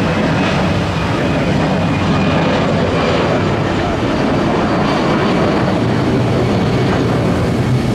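Jet airliner's engines at takeoff power, a loud steady roar as it accelerates down the runway and lifts off.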